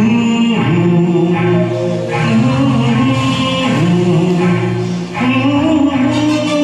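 A man singing long held, gliding notes over a backing track of a Hindi film song.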